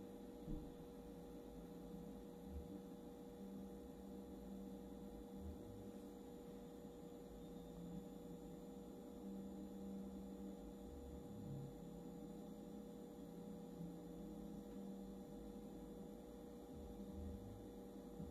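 Faint steady electrical hum from a Growatt solar inverter, with one clear constant mid-pitched tone over a lower buzz. A few soft low bumps.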